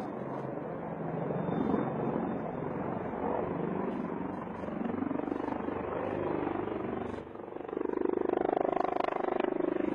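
Several military helicopters flying past in formation: steady engine and rotor noise that rises and falls in pitch. It grows louder about three-quarters of the way through, with a fast, even rotor chop.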